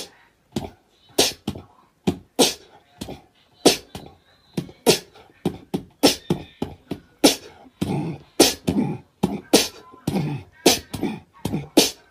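A person making quick percussive mouth sounds, beatbox-style clicks, pops and hissed bursts, about two or three a second in an uneven rhythm, some with a short voiced grunt in them.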